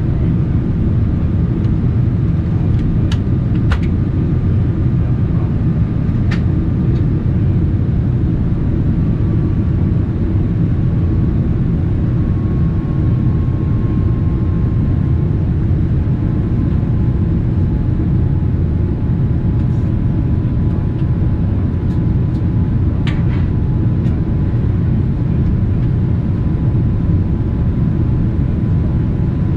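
Steady low rumble of a Boeing 787-9's engines and rushing air heard inside the passenger cabin in flight, with a faint thin whine that drifts slightly lower in pitch. A few small clicks come through, a cluster early and one past the three-quarter mark.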